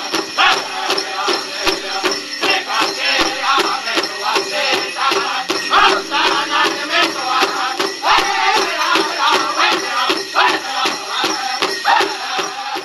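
Powwow music: a fast, steady drum beat, about three beats a second, under group singing and jingling bells.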